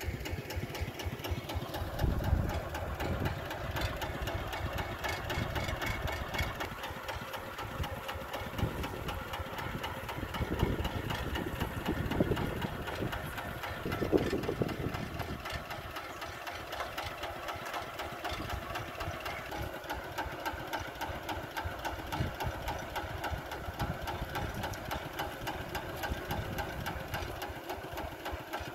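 Kubota engine running steadily with a rapid, even knock, swelling louder a few times in the first half.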